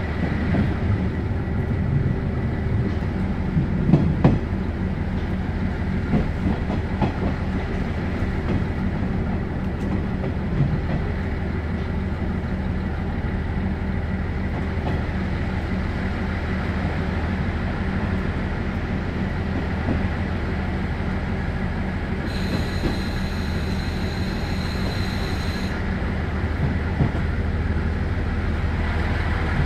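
KiHa 40 series diesel railcar heard from inside the cabin as it runs slowly into a station, with a steady low engine hum and wheel and rail-joint knocks. A few louder clunks come about four seconds in. A high steady squeal lasts about three seconds past the middle.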